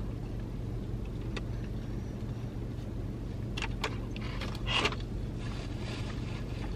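Steady low hum inside a parked car, with a few soft clicks of chewing and a short rustle of a paper burger wrapper about five seconds in.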